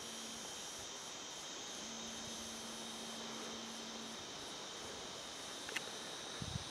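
Steady high-pitched chorus of insects in the bush, an even shrill drone with a faint pulsing shimmer above it. Near the end, wind starts bumping the microphone.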